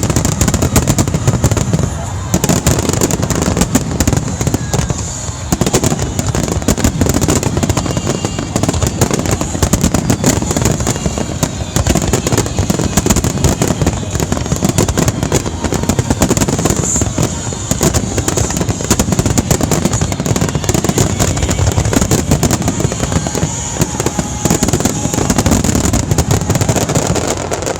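Fireworks finale barrage: shells bursting in dense, rapid succession, a continuous run of booms and crackles that stops near the end.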